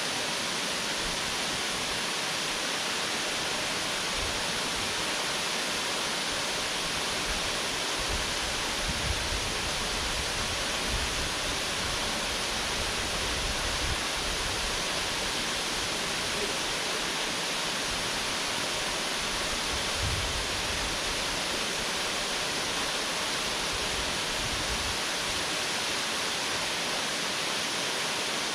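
Waterfall: a steady, even rush of falling water, with a few brief low rumbles about nine and twenty seconds in.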